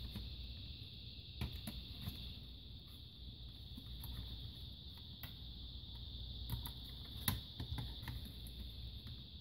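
Faint scattered clicks and light taps of laptop plastic parts being handled while the DC power jack cable is fitted into the lower chassis, over a steady faint high hiss.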